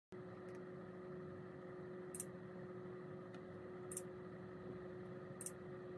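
Faint steady electrical hum and hiss with a few short, sharp clicks, the plainest about two, four and five and a half seconds in, starting abruptly out of digital silence.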